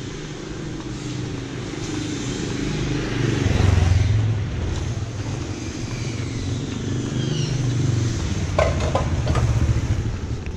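Street traffic: motor vehicles passing along a narrow city street, their low engine noise swelling about three to four seconds in and again near the end.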